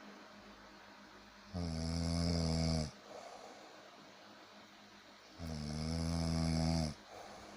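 A sleeping person snoring: two long, rattling, pitched snores about four seconds apart. A softer breathy exhale follows each one.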